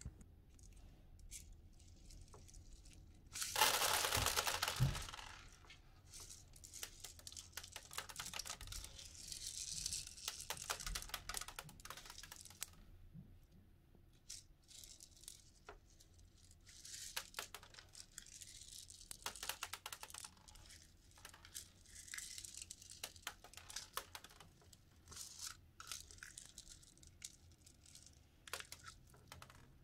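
Cotton-candy slime topped with blue beads being squished and pulled by hand in a plastic cup: soft crackling, rustling and many small scattered clicks of beads. One louder rushing burst comes about 3.5 seconds in.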